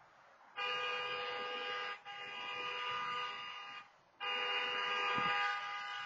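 Car horn honking in long held blasts: a first blast of about three seconds broken once very briefly, then after a short gap another long blast.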